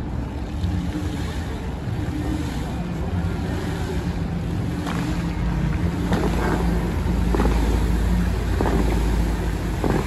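Bellagio fountain jets shooting water into the air: a rushing, spraying noise with a deep rumble that grows louder from about six seconds in, and several sharp whooshing bursts as jets fire.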